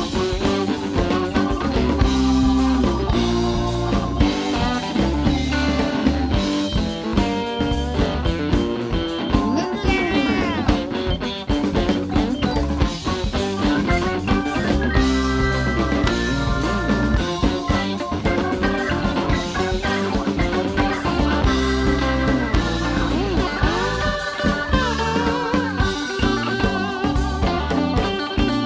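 Live blues band playing an instrumental passage: electric guitar plays lead lines with string bends over a drum kit, electric bass and keyboards.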